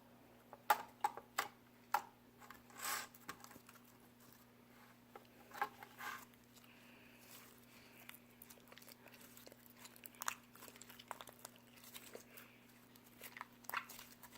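Hands kneading and stretching slime with conditioner mixed in, giving faint scattered sticky clicks, pops and crackles, a little louder in the first few seconds, over a steady low hum.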